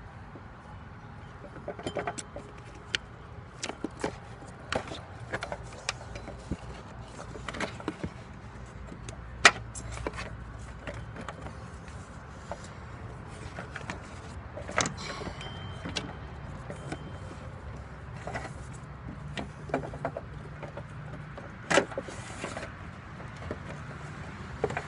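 Irregular metallic clicks and knocks of a wrench working the serpentine belt tensioner on a 2002 Saturn SL as the belt is slipped off the pulleys, over a steady low hum. The sharpest knock comes about nine and a half seconds in.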